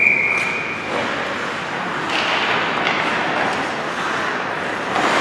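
Referee's whistle blown once, a steady high tone lasting about a second, over continuous hockey-rink noise.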